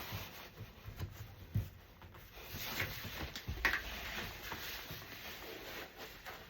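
Rustling and light knocks as playard parts are handled and fitted together, with a couple of louder rubbing swells about three seconds in.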